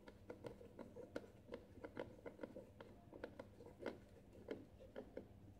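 Faint, irregular clicking of a hand screwdriver turning a screw into a coffee machine's side panel, several small ticks a second, stopping near the end.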